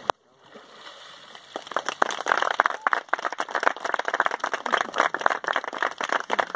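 A group of onlookers clapping, starting about a second and a half in and continuing, as applause for a baptism by immersion.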